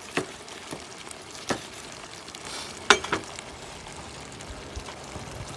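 Penang curry simmering in a wok over a portable gas burner: a steady bubbling hiss. Three sharp knocks sound over it, the loudest about three seconds in.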